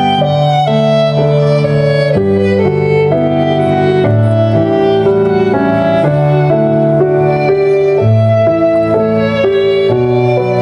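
Instrumental wedding processional music: a bowed violin melody over sustained low notes that change about once a second.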